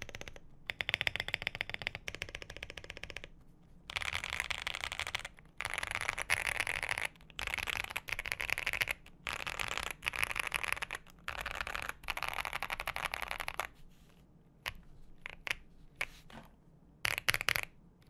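Typing on a QK65 mechanical keyboard fitted with lubed Boba U4T tactile switches on a POM plate with foam inside: fast runs of keystrokes in bursts of a second or two with short pauses, then slower, separate keystrokes near the end.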